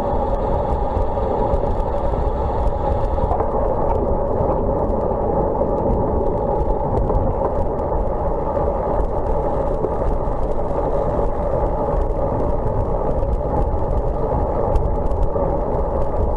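Steady wind rush and tyre noise on the microphone of a bicycle-mounted camera while riding a road bike on a wet road. A lighter upper hiss drops away a few seconds in.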